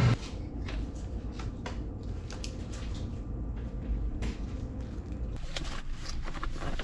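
Scattered light clicks and knocks over a steady low rumble of room noise.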